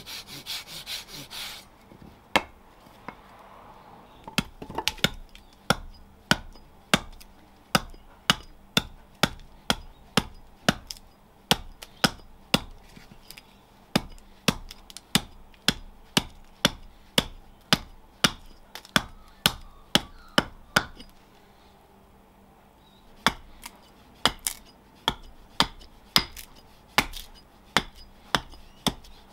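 Hand saw cutting a spalted birch spoon blank for about the first second and a half, then a small carving axe chopping the blank against a log chopping block in steady single strikes about two a second, pausing for about two seconds roughly three quarters of the way through.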